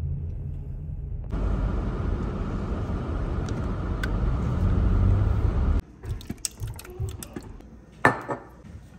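Steady road and wind noise of a car driving, with a low rumble, growing louder and cutting off sharply about six seconds in. Then come light clicks and clatter of a pot and a glass sauce jar being handled, with one sharp clank near the end.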